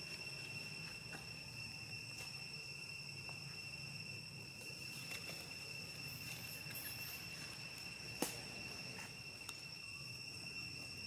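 Insects chirring in one steady, unbroken high-pitched drone, with a single sharp click about eight seconds in.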